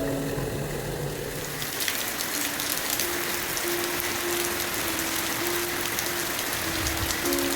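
Heavy rain falling and pattering on surfaces, with many individual drops and splashes; it comes up strongly about two seconds in. Soft piano music plays underneath.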